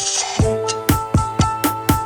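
Background music with a steady drum beat of about four strokes a second under held keyboard-like notes, with a brief hiss-like wash near the start.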